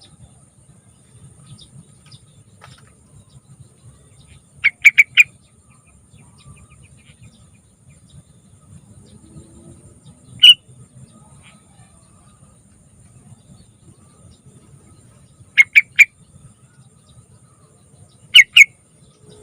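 Yellow-vented bulbul (trucukan) calling in short, loud bursts of quick chirpy notes: three in a row about five seconds in, a single note near the middle, three more about three-quarters through and two near the end.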